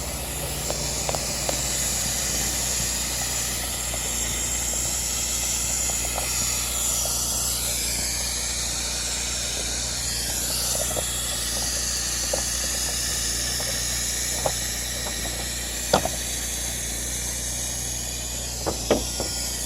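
Airless spray rig spraying silicone roof coating: a steady high hiss from the spray gun over the low, even hum of the rig's engine-driven pump, with a few short knocks near the end.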